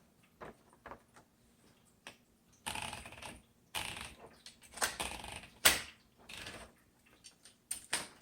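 Typing on a 1975 Smith Corona Classic 12 manual typewriter: irregular typebar clacks, a few single strokes at first, then quicker runs of keystrokes from about a third of the way in.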